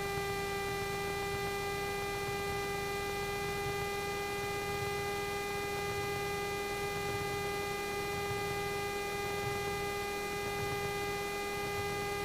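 A steady electrical hum on the cockpit audio: one constant buzzing pitch with a ladder of overtones, unchanging throughout, with only a faint low rumble beneath it.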